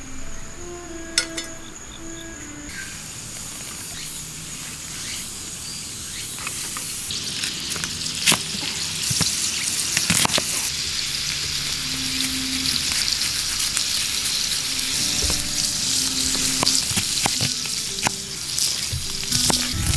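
Food frying and sizzling, the sizzle building up and getting louder a few seconds in, with a few sharp clicks.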